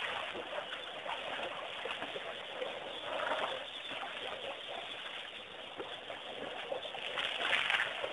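Waterhole ambience around elephants in wet mud: a steady rushing noise with two brief louder swells, about three seconds in and near the end.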